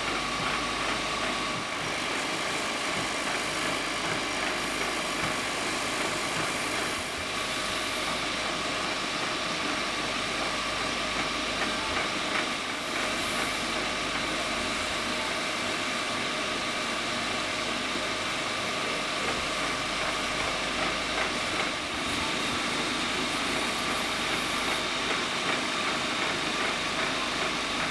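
Wood lathe running steadily, its motor giving an even hum with a constant whine as it spins a turned wooden piece.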